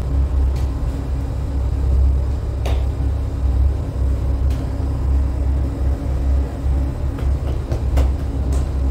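Steady low rumble and hum of bakery machinery running, with a few light knocks and taps.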